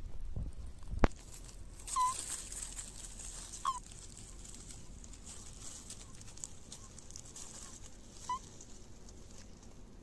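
Common toads (Bufo bufo) in a mating ball giving three short chirping croaks, spread a few seconds apart. These are typical of the release calls that male toads give when another toad clasps them. A sharp knock about a second in and a brief rustle of dry leaves come from the toads scrambling.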